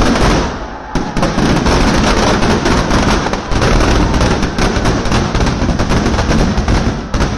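Firecrackers in a burning Ravan effigy going off: one loud bang, then from about a second in a dense, rapid string of cracks and pops.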